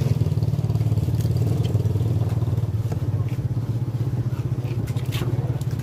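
A small engine idling steadily with a low, fast-pulsing throb, while a few sharp knocks of a machete chopping into a tuna carcass come through, the clearest about five seconds in.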